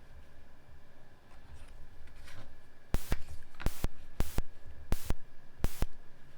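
Scissors snipping through a leather cooler hinge, trimming it to shape: about seven short, crisp cuts at uneven spacing, starting about halfway in.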